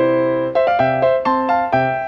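Background music: an electric piano playing a bright melody of quick, evenly struck notes.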